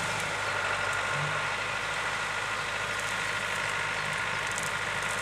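Renault Ceres tractor's diesel engine running steadily while it pulls a topper mower through rushes, with a steady high whine above the engine note.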